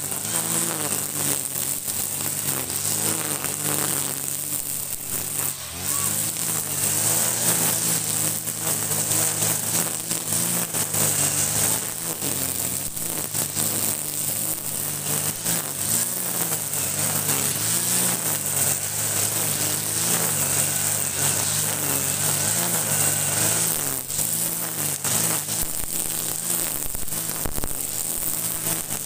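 Kawasaki TJ45 brush cutter's two-stroke engine running steadily while cutting grass, its pitch wavering a little up and down as the load changes.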